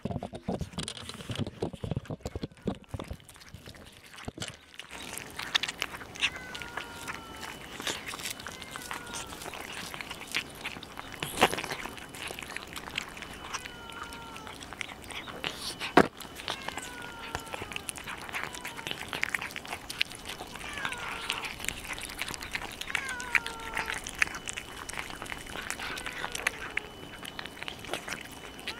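Several cats chewing and lapping boiled carp from a plate close to the microphone, with a steady run of small wet clicks and smacks and an occasional louder knock. Short falling chirps recur every few seconds in the background.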